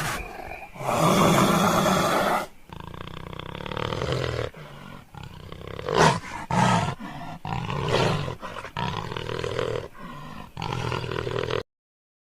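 A large wild animal calling loudly over and over, each call a second or less long, until the sound cuts off suddenly near the end.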